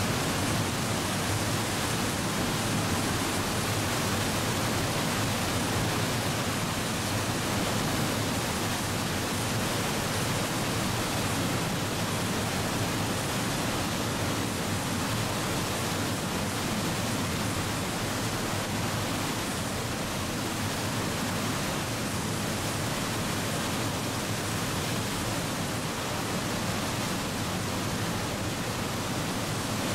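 White water of the Nile at Murchison Falls rushing and crashing over rocks, a loud, steady, unbroken noise.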